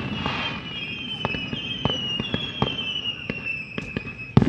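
Fireworks display heard from a distance: scattered sharp bangs and crackles, with several high whistles slowly falling in pitch, and a louder bang near the end.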